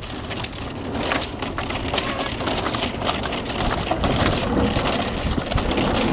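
A bundle of plastic jugs strung together, shaken and swung close by, making a dense, irregular crinkling rattle, with scuffing on dirt.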